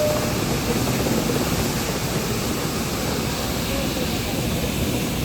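Steady running noise of a moving train, an even rumble and rush with no distinct beats or horn.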